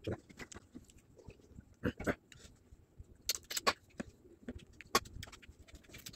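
Close-up mukbang eating sounds: irregular wet smacks and clicks of chewing, and hand-eating of rice and mutton.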